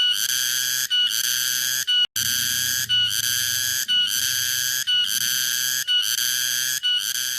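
Cicada calling in loud, high, buzzy pulses just under a second long, repeating about once a second with short breaks between them.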